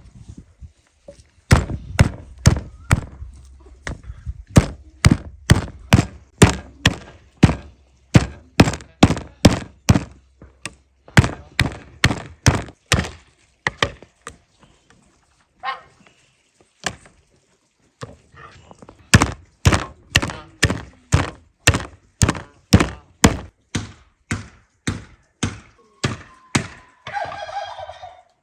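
Heavy chopping strikes, about two a second, in two long runs with a gap of a few seconds between them.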